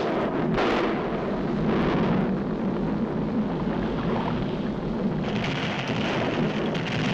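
Animated-cartoon volcano eruption sound effect: a continuous, dense rumbling roar, with more hiss from about five seconds in.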